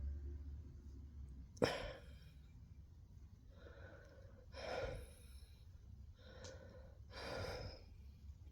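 A person breathing audibly: a sudden sharp intake of breath about a second and a half in, then slow, sighing breaths in and out, four in all.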